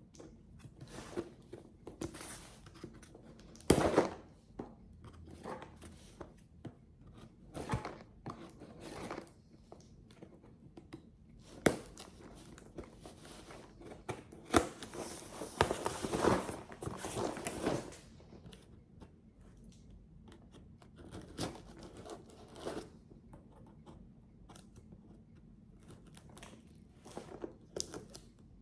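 A cardboard shipping box of Nespresso coffee pods being opened and unpacked by hand: packaging tearing and crinkling, with scattered knocks of cardboard, the longest tearing stretch about two thirds of the way in.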